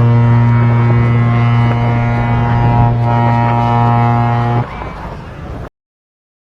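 A deep single-note horn blast, held steady, that cuts off about four and a half seconds in and leaves a short noisy rumble.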